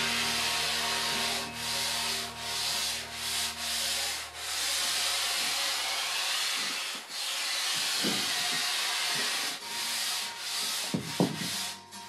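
Hand-sanding a foam surfboard blank: the abrasive rasps along the board in repeated strokes with short breaks between them.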